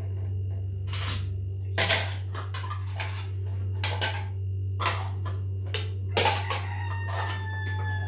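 Ceramic plates and metal spoons clinking and clattering as plates are set out and food is spooned from metal pots, over a steady low hum. Near the end a rooster starts to crow.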